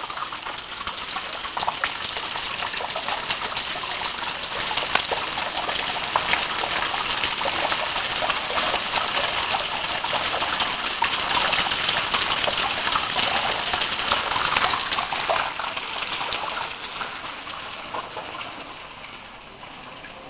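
Artificial rain falling on a working model of rooftops, gutters and pipes: a steady rush of water made of many small drops and trickles, which fades over the last few seconds.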